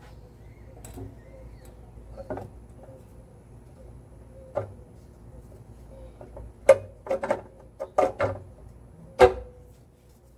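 Scattered sharp metal clinks and knocks of hand tools and engine parts being handled while a stud and its fastener are fitted. They are sparse at first, come several in quick succession in the second half, and the last one rings briefly.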